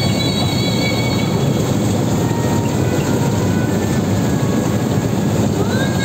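Rice combine harvester running, heard from inside its cab: a loud, steady drone of engine and machinery, with thin high whistling tones coming and going over it.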